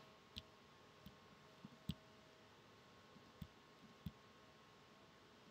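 About half a dozen sharp computer mouse clicks, spaced irregularly over near silence, the loudest about two seconds in.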